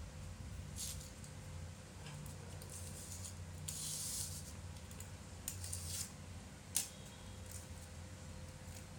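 Faint handling noises from a phone battery replacement: scattered light clicks and taps of small tools and parts, with a short scratchy hiss about four seconds in and a sharper tap near seven seconds, over a steady low hum.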